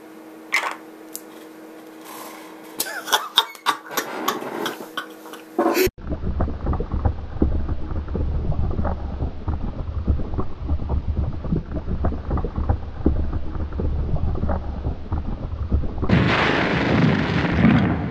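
A string of clicks and knocks from a handheld phone being handled, over a faint steady hum. About six seconds in comes a dense, low, crackling rumble that swells louder near the end.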